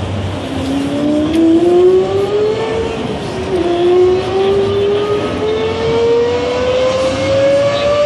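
Sports car engine accelerating hard: its pitch climbs, drops sharply at a gear upshift about three and a half seconds in, then climbs again. It sounds like a recording played over loudspeakers, since the displayed car stands still.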